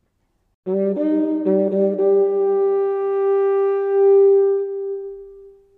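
Short musical interlude on a single wind instrument: a few quick notes about a second in, then one long held note that slowly fades out near the end.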